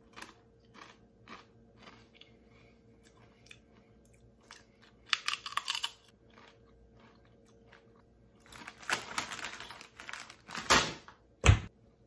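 Crunching and chewing of Doritos Diablo tortilla chips. Faint crunches at first, a louder crunching bite about five seconds in, then loud crunchy chewing over the last few seconds, ending in a sharp thump.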